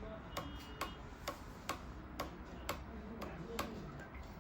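Sharp, even ticking, about two clicks a second, over a faint low hum.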